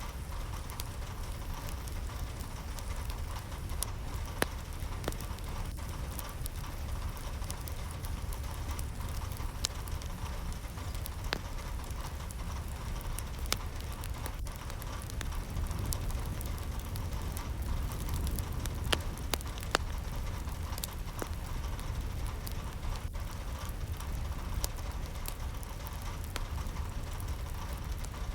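Steady rain, with scattered sharp drops ticking on a hard surface.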